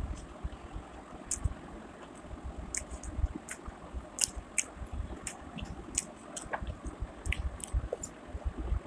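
A person chewing food with the mouth closed: irregular soft wet smacks and small clicks.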